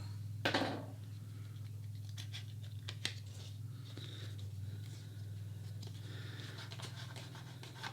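Soft scraping and rustling of a paper tuck box and its peeled-off seal being handled, with a sharp click about three seconds in, over a steady low hum.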